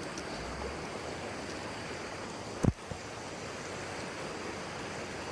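Steady rushing of a mountain stream, with one sharp, loud thump about two and a half seconds in and a fainter one just after it.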